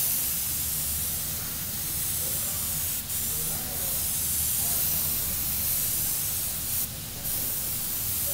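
Airbrush spraying paint with a steady hiss, the spray breaking off briefly twice, about three and seven seconds in.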